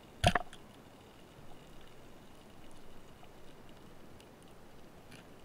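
Speargun fired underwater: one sharp, loud crack with a quick second hit and a brief metallic ring. Then the steady hiss of the sea with a few faint clicks.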